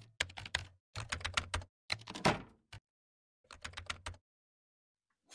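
Rapid computer keyboard typing in several short bursts of clicking keystrokes, stopping about a second before the end.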